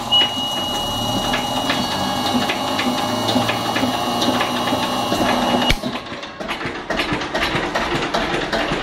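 Listeroid-type single-cylinder diesel engine running steadily on ordinary diesel, under a fixed 3 kW generator load, with a regular mechanical knock. A steady high whine sounds along with it and cuts off abruptly about two-thirds of the way through.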